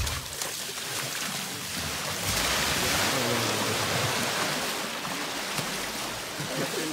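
Water splashing and sloshing in a plastic tub as a baby elephant rolls in it, spilling over the rim onto the floor; the splashing grows heavier about two seconds in and stays steady.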